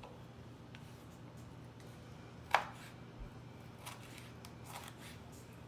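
Chef's knife slicing a red bell pepper into strips on a wooden cutting board: one sharp knock of the blade on the board about two and a half seconds in, then a few softer cuts.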